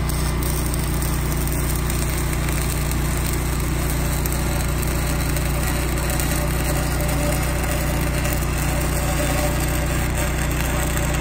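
Arc welding on a steel pipe joint: the arc's steady crackle and sizzle, over the even hum of a small engine running.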